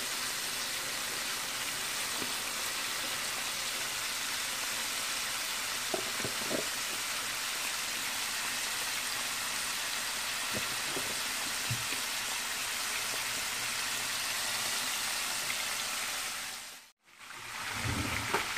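Chicken wings in a flour coating deep-frying in a pot of hot oil: a steady, even sizzle, with a few faint knocks. The wings are being left untouched so the flour coating can set. Near the end the sizzle cuts out for a moment and comes back.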